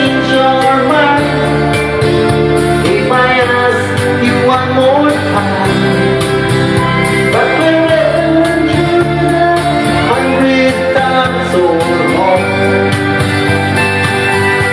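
Country-folk song with guitar accompaniment and a singing voice carrying a sliding melody over it.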